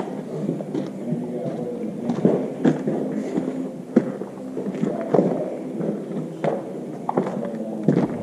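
Scattered knocks and footsteps over a steady low hum.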